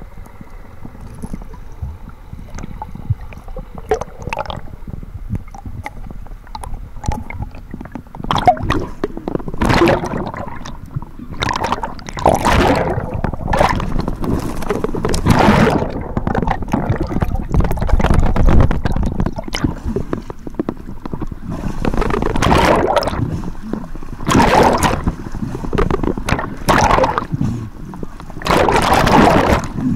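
Quiet underwater rumble, then from about eight seconds in, repeated loud rushes and splashes of seawater as the camera breaks the surface and waves wash over it.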